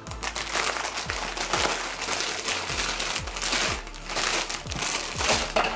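Plastic bag of leafy greens crinkling and crackling as it is handled and opened.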